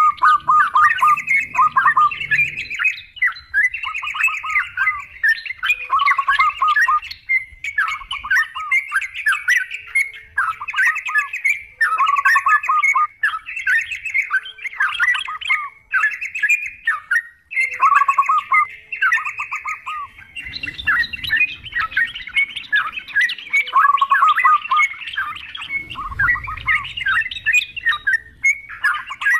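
Yellow-vented bulbuls (trucukan) chattering in a dense chorus of short, overlapping phrases repeated with brief gaps, used as a lure recording to get caged birds singing.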